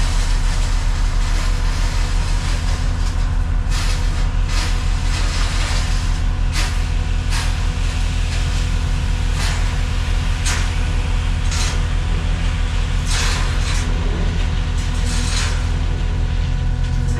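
Skid steer's diesel engine running steadily under work, with a dozen or so short hissing swishes over the engine between about four and fifteen seconds in.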